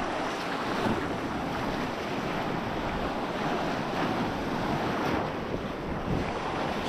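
Sea surf washing steadily onto the shore, with wind on the microphone.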